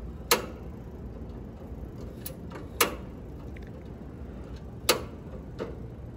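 Three sharp clicks or knocks about two seconds apart, with a couple of fainter ticks between them, over a steady low background noise.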